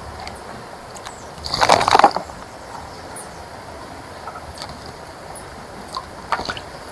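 A bird bathing in a bird bath: a burst of rapid splashes lasting about half a second, a little over a second in, then a few lighter splashes near the end.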